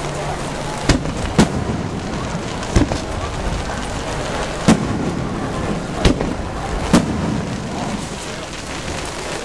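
Aerial firework shells bursting: six sharp bangs spread unevenly over about nine seconds, over a steady hiss of rain.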